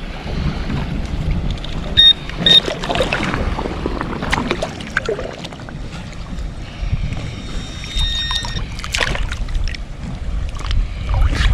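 Low rumbling of wind and water while wading and digging in a shallow river, with two short high electronic beeps from metal-detecting gear about two seconds in and a fainter held tone later.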